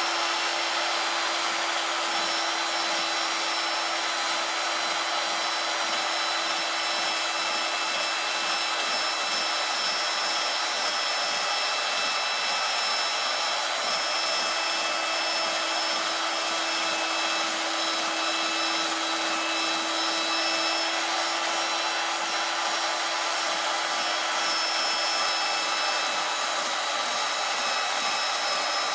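A steady mechanical whir with several constant whining tones, holding an even level throughout with no distinct scraping strokes standing out.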